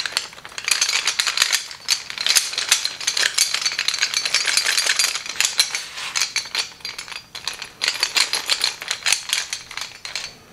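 Bolted-together steel scale armor plates clattering and clinking against one another as the flexible panel is flexed and shaken by hand, a dense run of metallic clicks that eases off briefly past the middle.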